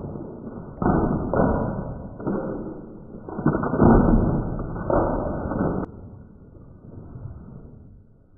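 Handfuls of thrown beans striking a paper demon mask and scattering, in several sudden rushes, the loudest about four seconds in, dying down after about six seconds.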